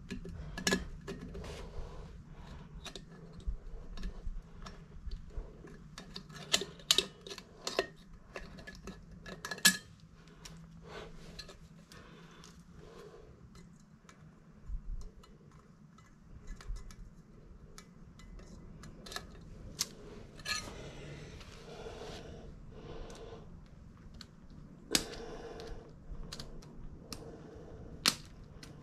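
Metal hand tools and parts clinking and clattering in irregular sharp clicks, with a few louder metallic knocks, during work on a truck's rear wheel hub.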